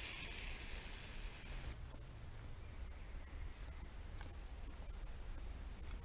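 Forest insects trilling steadily at a high pitch, with a softer, lower hiss that stops about two seconds in.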